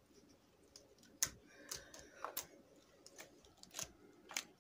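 Fluffy slime being kneaded by hand, giving faint sticky clicks and small pops at irregular intervals.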